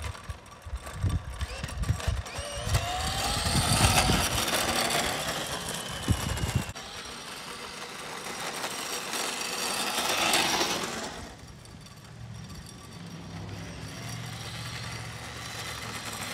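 Razor E90 electric scooter, its 12 V motor run on a 20 V Dewalt lithium battery, whining as it rides past with its wheels rolling on asphalt, swelling loudest about four seconds in and again around ten seconds. Low thumping rumble over the first six or seven seconds.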